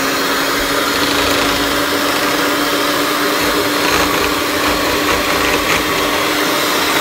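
Electric hand mixer running steadily, its beaters whisking egg and cream in a glass bowl.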